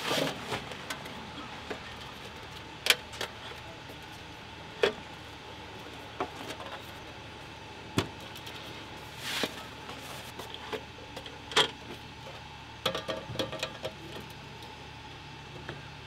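Folding camp table with aluminium legs being unpacked and set up: scattered sharp clicks and metal knocks as the legs snap out and lock and the tabletop is placed, with a quick cluster of rattles about thirteen seconds in.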